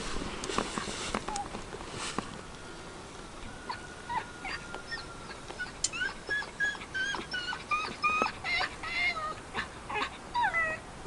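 A dog whining: a string of short whimpers that start about four seconds in and come quickly one after another in the second half.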